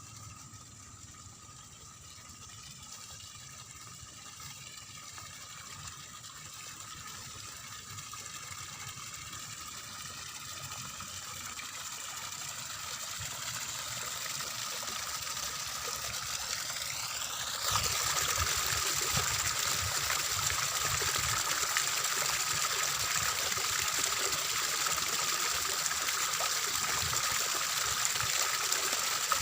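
Water trickling and splashing through a rice paddy, growing gradually louder and then stepping up suddenly about two-thirds of the way through.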